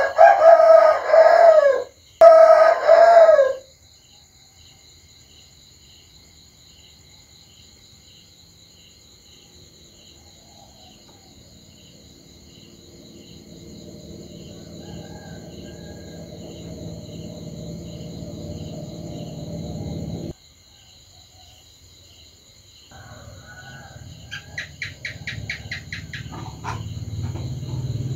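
Two loud, drawn-out animal calls, each a second and a half or more, one right after the other; then a low rumble that slowly swells and cuts off suddenly about twenty seconds in, and a rapid run of clicks near the end.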